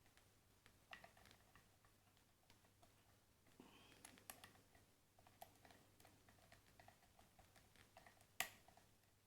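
Faint, irregular clicks and ticks of a hook pick working the pin stack of a Vita cylinder lock held in a deep false set, with one sharper click near the end.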